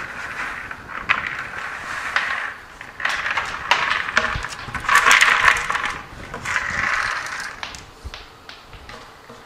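Pea seeds poured from a plastic bucket onto soil-filled growing trays, a rattling patter that comes in several pours, the loudest about five seconds in, dying down near the end.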